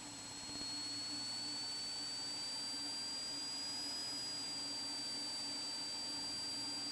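Cessna T206's turbocharged piston engine and propeller coming up to power for the takeoff roll: the steady running grows louder about half a second in and then holds, with a thin high whine that rises slightly in pitch and then stays level.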